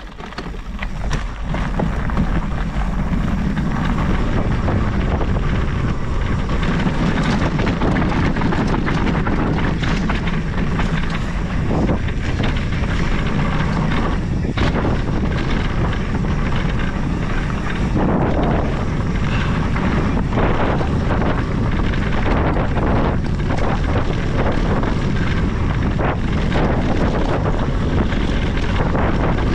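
Mountain bike rolling down a dirt and gravel trail: steady wind rush on the bike-mounted camera's microphone with tyre rumble and the clatter of bumps, building up over the first second or two as the bike gets going.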